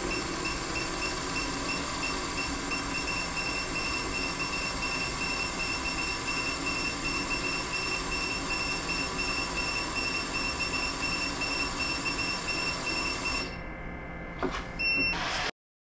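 Drill press running steadily while a half-inch Forstner bit bores a hole into zebrawood. Near the end the running sound drops away, a couple of clicks follow, and then the sound cuts off abruptly.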